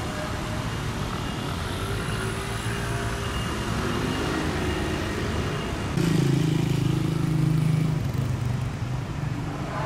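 Street traffic: motor vehicles passing by with a steady rumble, their engine hum rising and falling, one passing louder from about six to eight seconds in.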